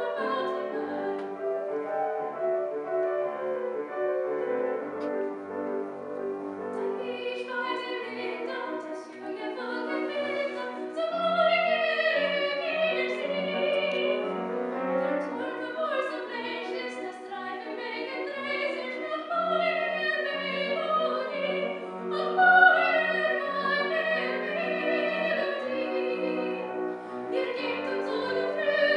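Lyric soprano singing a German art song with piano accompaniment, the piano playing repeated low notes under the voice.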